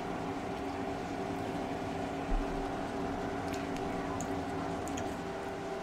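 Steady mechanical hum with several even tones. Faint clicks of chewing come a few times in the second half, and a dull low thump sounds about two seconds in.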